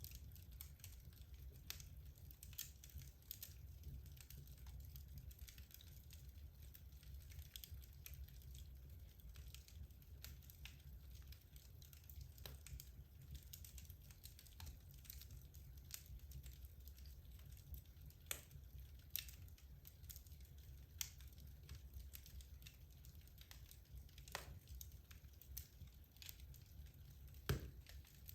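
Logs burning in a fireplace, crackling softly with irregular small pops and one louder pop near the end, over a steady low rumble.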